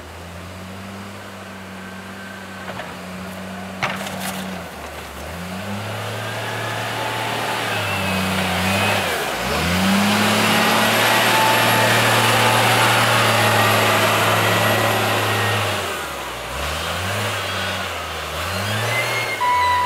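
John Deere 624J wheel loader's diesel engine revving up and down under load, loudest about halfway through while the bucket pushes through snow with a broad rushing, scraping noise. A sharp knock sounds about four seconds in.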